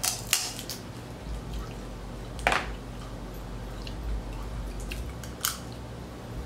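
A person eating saucy seafood boil close to the microphone: wet, squishing mouth sounds with a few sharp clicks and smacks, the loudest about two and a half seconds in.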